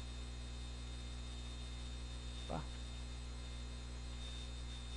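Steady electrical mains hum in the recording, with a brief faint sound about two and a half seconds in.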